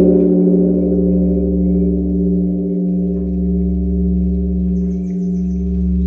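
Large bronze Korean temple bell (beomjong) struck right at the start, then ringing on with a loud, deep hum and several higher tones above it. The hum swells and fades slowly about every two and a half seconds, the beating that such bells are known for.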